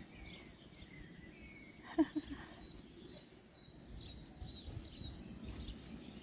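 Faint small birds chirping, including a run of short high chirps, about three a second, in the middle, over a low steady rumble. About two seconds in comes a brief low voice-like sound in three quick pulses.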